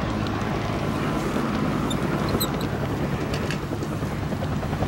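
An engine running steadily close by, a constant low hum with no change in pace.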